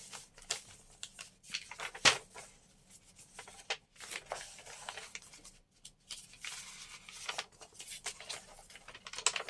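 Paper pages of a handmade journal being turned and handled: scattered soft rustles and light taps, with one sharper tap about two seconds in.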